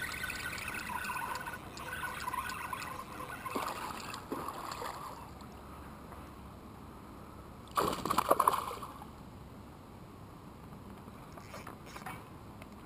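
Water trickling and splashing beside a kayak while a hooked fish is played close to the boat. About eight seconds in comes one short, loud splash as the fish thrashes at the surface.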